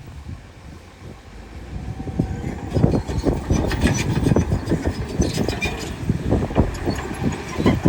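Heavy construction machinery working: a quieter start, then dense rattling and clanking that builds up about two and a half seconds in and keeps going.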